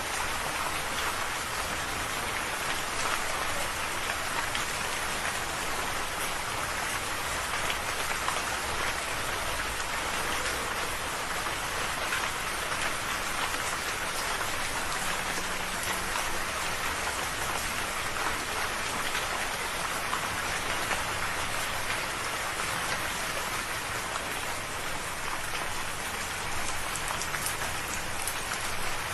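Steady rain falling, an even hiss flecked with fine drop ticks that holds at one level throughout.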